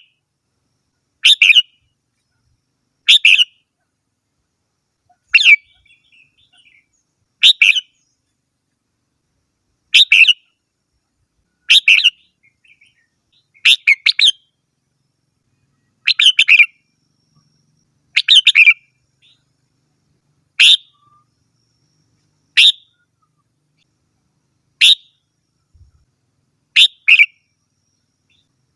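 Red-whiskered bulbul singing: short song phrases repeated about every two seconds, around thirteen in all, with near silence between them.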